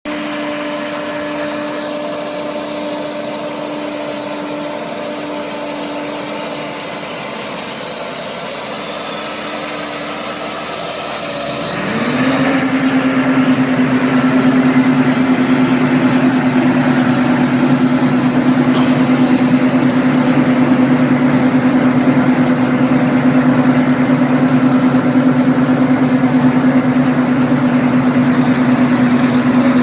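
Mechanical grape harvester's engine running with a steady hum. About twelve seconds in it gets louder with a quick rise in pitch, then holds a steady, louder drone as the machine comes closer.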